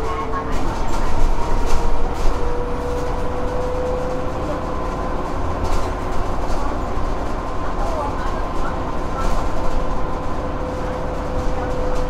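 Ride inside a moving bus: a steady engine and road rumble under a held, even whine, with an occasional rattle or click from the body.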